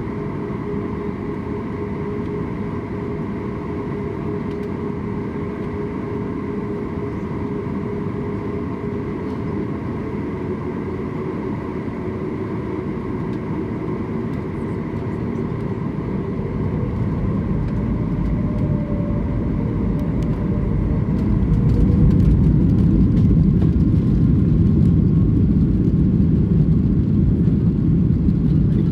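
Inside the cabin of a Boeing 737 MAX 8, its CFM LEAP-1B engines give a steady hum with several held tones. A little past halfway the engines grow louder and a deep rumble builds, then holds: thrust coming up for the takeoff roll.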